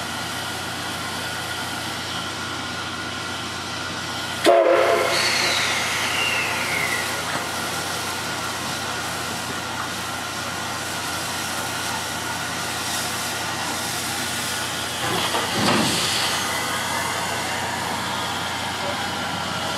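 C58 363 steam locomotive moving slowly, with a steady hiss of steam and a faint even whine. About four and a half seconds in there is a short, sharp whistle toot with a tone that falls away after it, and around fifteen seconds in a louder swell of steam.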